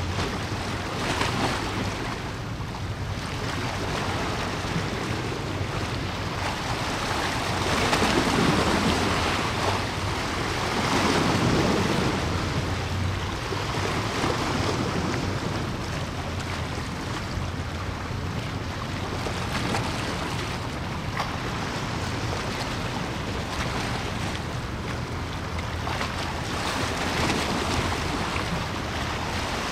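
Wind buffeting the microphone over lapping water at the shore, swelling louder twice around a third of the way in, with a steady low hum underneath.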